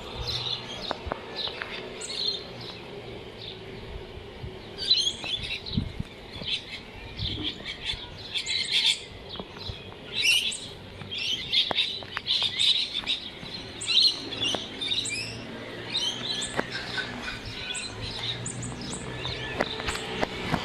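Small birds chirping and tweeting in quick, repeated calls, over a faint steady low hum.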